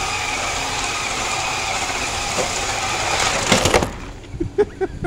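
Jada RC Ford Mustang drift car's small electric motor and gears whining steadily as it drives on a tile floor, then a quick clatter of knocks about three and a half seconds in, after which the whine stops and only light handling clicks remain.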